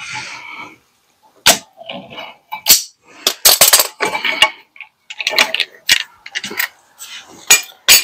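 Metal hand tools clicking, clanking and rattling against each other, with a string of sharp knocks: a clamp and locking pliers being handled at a brake caliper.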